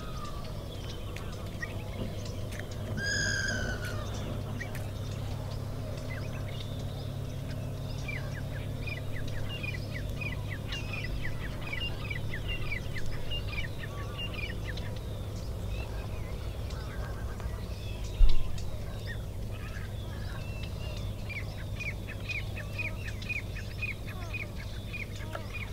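Birds calling over a steady low hum: one louder pitched call about three seconds in, then two long runs of quick, high chirps. A single brief thump comes a little past the middle.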